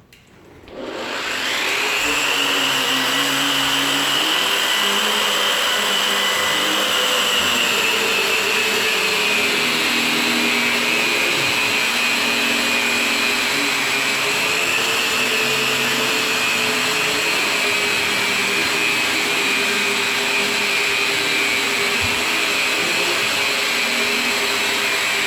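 Electric drywall sander with vacuum dust pickup switching on about a second in and coming up to speed. It then runs steadily with a motor whine that wavers slightly in pitch as it works.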